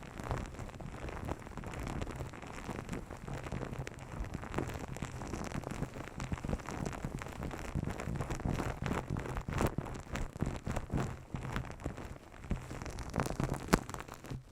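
ASMR massage sounds: hands rubbing close over the microphone, making a dense crackling rustle full of small sharp clicks. It stops abruptly right at the end.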